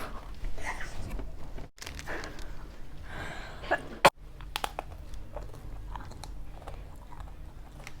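Close-up chewing and biting of pizza: soft wet mouth sounds with scattered small clicks, and a sharp click about four seconds in.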